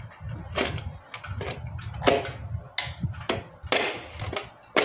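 Irregular sharp clicks and knocks of a door closer body and screwdriver tapping against an aluminium door frame header as the closer is held in place for mounting.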